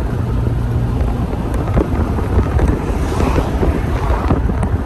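A car driving along: steady road and tyre rumble with wind rushing over the microphone.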